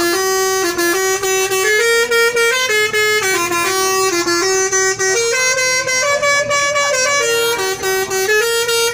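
Indonesian 'telolet' bus horn, a multi-tone air horn, playing a continuous tune of quick stepped notes.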